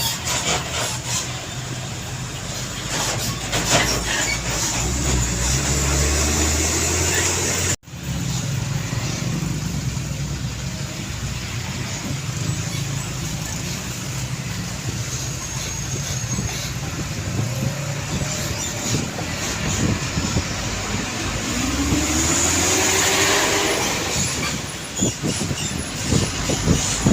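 Heavy road traffic passing close by: truck engines running with tyre and road noise. The sound cuts out abruptly about eight seconds in, and near the end an engine rises in pitch as it pulls away.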